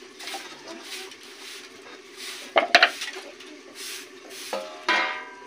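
A few sharp clinks of steel kitchenware and a wooden rolling pin being handled on a hard floor, about two and a half seconds in, over a steady low background. A short pitched sound near the end.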